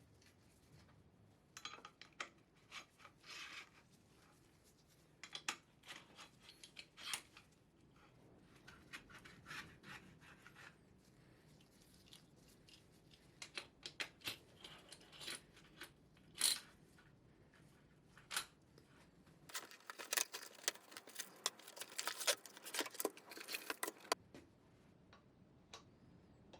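Hand work on bicycle parts: scattered clicks, taps and short scrapes. Near the end comes a few seconds of dense, rapid scraping or rubbing.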